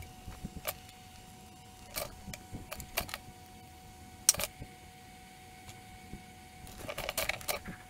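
Scattered small clicks and taps of hand tools and wire leads being handled while LED lamp leads are fitted and soldered inside an amplifier chassis, the sharpest about four seconds in and a quick cluster near the end, over a faint steady tone.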